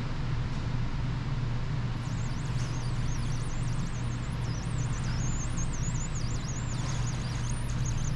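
A steady low hum, with a faint warbling high-pitched whistle from about two seconds in until near the end.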